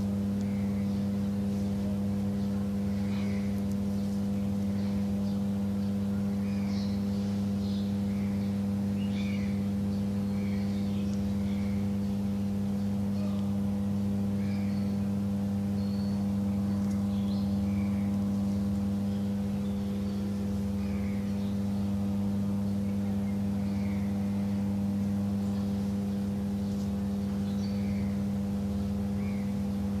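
Steady drone of a machine running at constant speed, with an unchanging hum, and short high chirps dotted through it every second or two.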